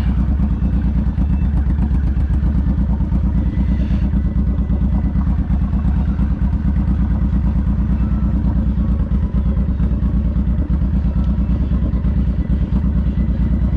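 Motorcycle engine running steadily, with a low, even exhaust note and no revving.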